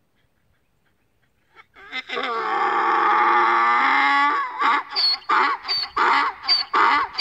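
A donkey braying. After a second or two of quiet it starts with one long drawn-out note, then breaks into quick, regular hee-haw pulses about two or three a second.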